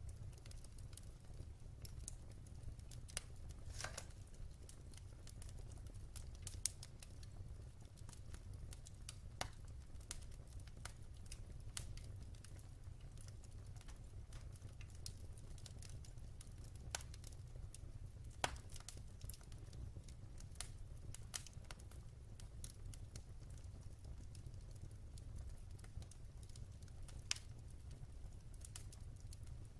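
Wood fire burning in a fireplace: irregular crackles and sharp pops from the burning logs over a low steady rumble of the flames.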